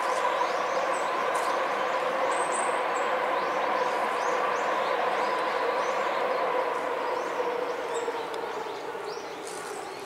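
Electric train running past, a loud steady noise with a low hum and a higher tone, fading away near the end; the noise is put down to the cars perhaps being old. Birds chirp over it.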